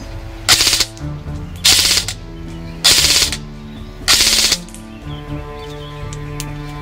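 KWA SR-series airsoft electric rifle firing four short full-auto bursts, each under half a second and about a second apart, over background music.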